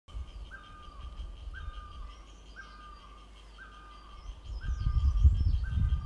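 A barbet calling over and over, about once a second: each call steps up to a held note, then drops back. Under it runs a steady, finely pulsing high buzz from the cicada's tymbal organs. A loud low rumble comes in from about four and a half seconds in.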